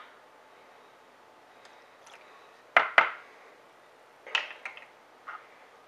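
Kitchen utensils knocking on a hard surface: two sharp knocks about a quarter second apart near the middle, then a few lighter clinks about a second later.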